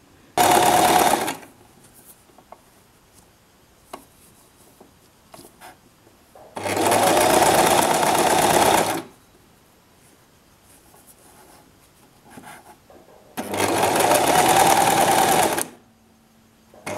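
Domestic sewing machine stitching a double-folded hem in three runs: a short burst near the start, then two longer runs of about two seconds each, with faint clicks in the pauses between.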